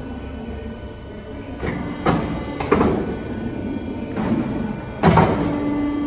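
Steelmaster AML-3 automatic duct line running through its program, its folding station bending galvanised sheet steel into a duct section: a steady machine whir broken by several sudden clunks and surges of motor noise, the loudest about five seconds in, with a steady motor hum near the end.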